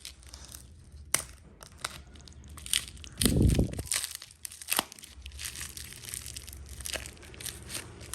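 Handling noise: a crinkling rustle with many light clicks and knocks as lighters and their packaging are picked up and handled, with one duller thump a little over three seconds in.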